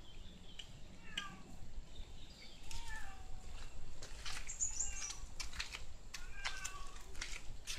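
Cat meowing: several short meows spread over a few seconds, with brief high chirps between them.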